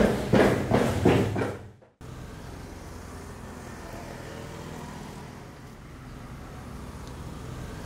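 Loud rhythmic thumps, about two a second, that cut off sharply about two seconds in. They are followed by a steady, even background hum.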